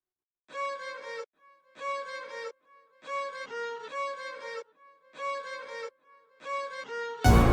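Music: a short string-like melodic phrase repeated about six times with brief silences between, then a loud, dense electronic track cuts in near the end.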